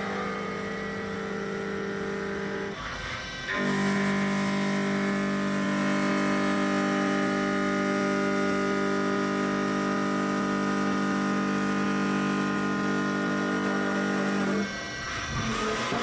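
A Haas VF4 vertical mill's 3/4-inch Kennametal four-flute end mill cutting metal dry, without coolant, making a steady pitched singing tone. The tone breaks off briefly about three seconds in and again near the end.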